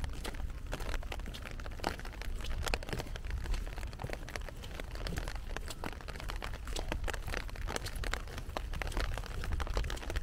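Rain falling: a dense, irregular patter of sharp drop ticks, over a steady low rumble.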